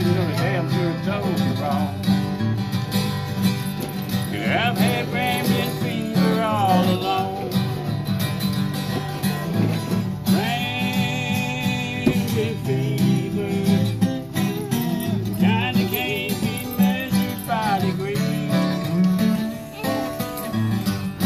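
Acoustic guitars strumming and picking a country-bluegrass tune, with long, wavering melody notes held over them.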